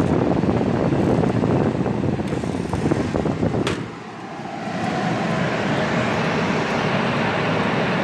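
Late-1960s Sears Coldspot 18,600 BTU window air conditioner running, its new Fasco fan motor blowing air through the unit with a steady rushing noise. A sharp click a little before halfway, then the noise drops for about a second and builds back up to a smoother hiss.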